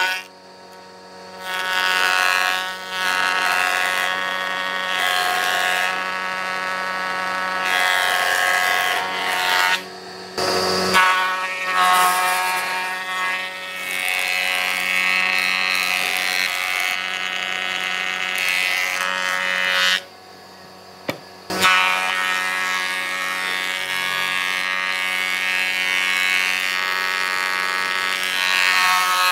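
Electric power tool motor running steadily on wood, with a brief drop near the start, another about a third of the way through, and a longer gap about two-thirds through.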